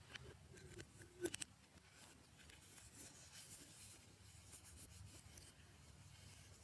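Faint rubbing and scratchy sounds of slime being handled and mixed, with a quick cluster of sticky clicks about a second in.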